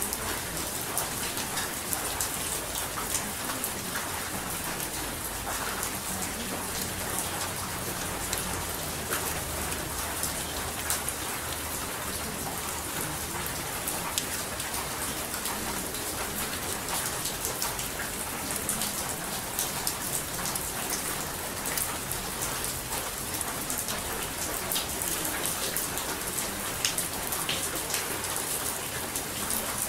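Recorded steady rain, an even hiss with many small drop ticks throughout.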